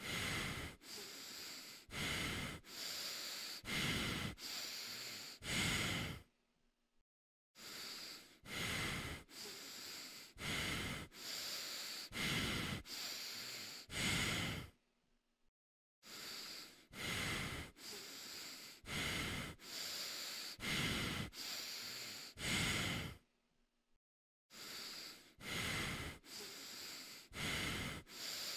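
A person breathing heavily inside a tiger costume head, with quick, noisy in-and-out breaths less than a second apart. The breathing comes in runs of about seven seconds, broken three times by about a second of silence.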